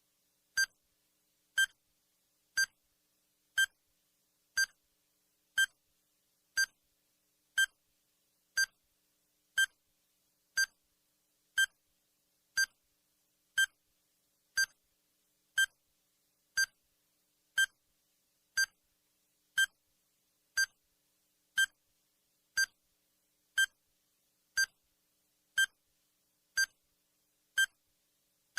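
Countdown timer sound effect: a short, high electronic beep once every second, evenly spaced with silence between.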